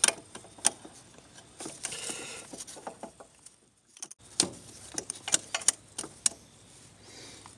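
Irregular light metallic clicks and clinks as pliers grip and squeeze spring hose clamps on the throttle body's hoses.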